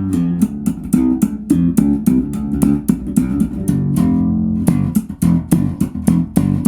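Ibanez EHB1506MS six-string electric bass played unaccompanied, a busy run of quickly plucked notes with sharp, percussive attacks and a note held briefly in the middle. It is heard straight out of the box, only tuned to A440.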